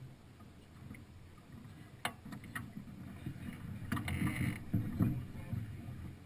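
Sailing yacht under way: a steady low rumble of wind and water on the action-camera microphone. There are a couple of sharp clicks about two seconds in, and a brief hiss around four seconds in.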